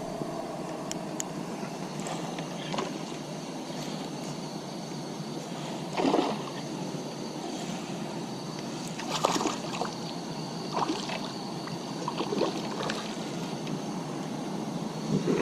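Water sloshing, with a few short splashes, as a hooked largemouth bass is played and brought in at the water's edge.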